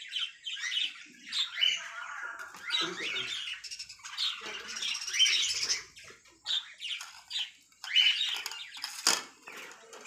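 Small caged love birds chattering and squawking, many short high calls tumbling over one another, with a brief sharp louder sound about nine seconds in.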